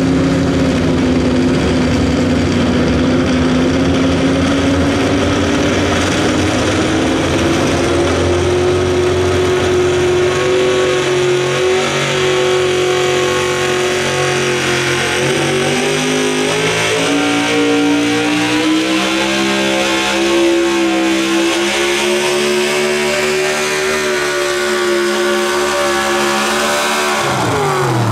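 Pickup truck's pulling engine held at high revs under heavy load as it drags a weight-transfer sled, the pitch climbing slowly and staying high, then dropping steeply near the end as the throttle comes off.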